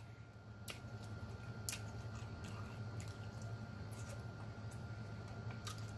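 Close-miked mouth sounds of a person chewing a large mouthful of food, faint wet squishes and a few small clicks and smacks over a steady low hum.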